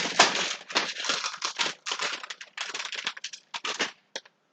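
Tortilla chips being crushed: a dense run of irregular crunches and crackles that thins out to a few scattered crackles near the end.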